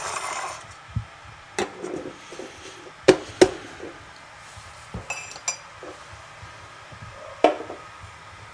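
Tea-making things handled on a kitchen counter: a short rattle at the start, then scattered sharp knocks and clinks of metal, glass and crockery, the loudest two close together about three seconds in, with a brief ringing clink a little past halfway.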